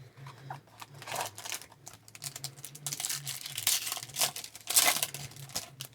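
Trading-card pack wrapper being crinkled and torn open, a run of rustling rips that is loudest about five seconds in.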